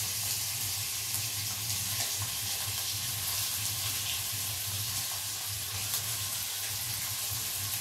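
Food sizzling steadily as it fries in a pan, an even hiss with a steady low hum underneath and a few faint utensil ticks.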